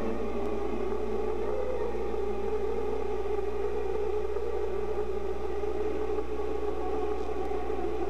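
Steady droning whir of a sci-fi spacecraft's engine, an unchanging synthetic sound effect.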